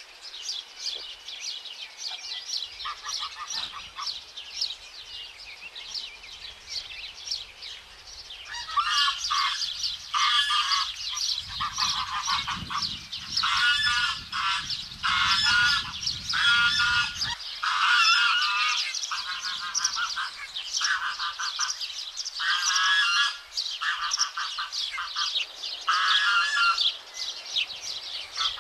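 Greylag goslings peeping steadily in thin, high cheeps, joined about a third of the way in by louder, lower goose calls in repeated short bursts.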